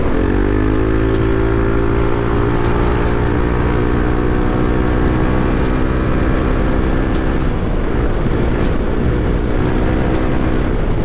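Yamaha NMAX 155 scooter's single-cylinder engine under way. Its note rises in pitch in the first second as the scooter speeds up, then holds steady at cruising speed.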